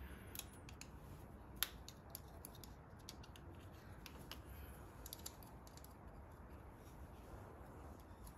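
Faint, scattered small clicks and ticks of hands handling parts at the top of a motorcycle carburetor, with one sharper click about one and a half seconds in, over a low steady hum.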